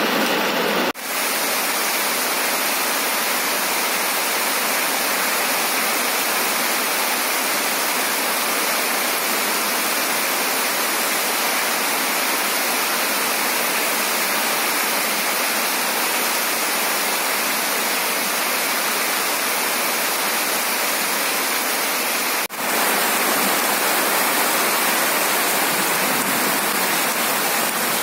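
Heavy monsoon rain pouring down in a steady, dense hiss, with two brief dips in loudness, about a second in and again near the end.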